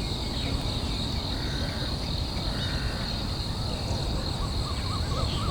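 A steady, high-pitched insect chorus, constant throughout, over a low rumbling noise, with a few faint chirps near the end.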